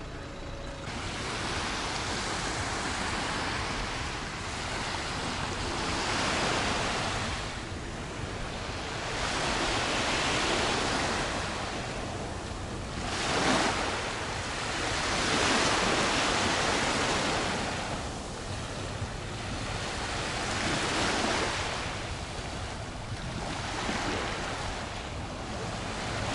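Sea waves breaking and washing onto the beach, the surf swelling and fading every few seconds, with one louder crash a little past halfway.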